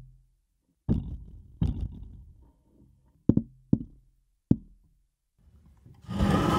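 Five sharp wooden knocks, a small stick tapped against the side of a wooden chess table, each with a short ring. Near the end a louder, longer scraping noise with a juddering tone begins as a small wooden stool is slid on a parquet floor.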